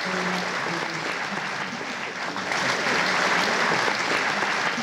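A large audience applauding, a dense steady clapping that swells slightly about halfway through.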